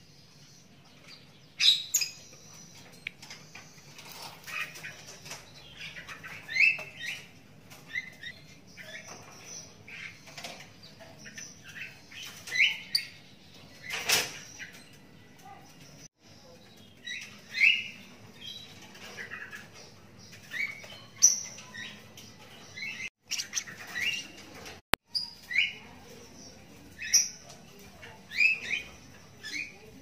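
Young lovebird chick, about a month old, giving short high chirps every second or so, with a louder sharp sound about fourteen seconds in.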